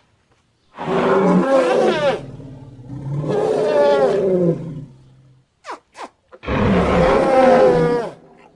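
Three long, loud roars voiced as a woolly mammoth, a performed imitation in the manner of elephant and monster roars. The second roar is the longest, and two short clicks fall between the second and third.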